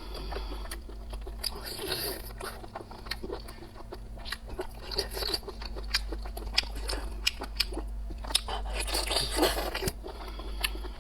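Close-up eating sounds of a person biting and chewing seafood, with many short wet, crunchy clicks over a low steady hum.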